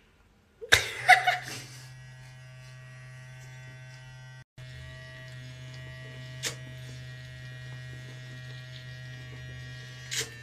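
Amabrush automatic toothbrush mouthpiece vibrating in the mouth, a steady electric buzz, after a loud short burst of noise about a second in. The buzz drops out for an instant near the middle.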